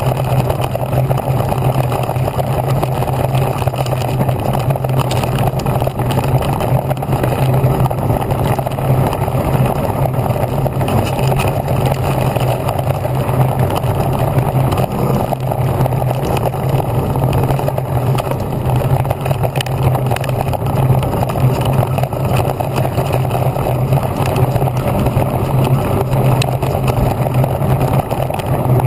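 A Haibike XDURO AllMtn 2.0 electric mountain bike riding fast over a rough dirt and gravel track, heard through a camera mounted on its handlebar. The tyres on the ground and the shaking bars make a loud, steady rumble and rattle.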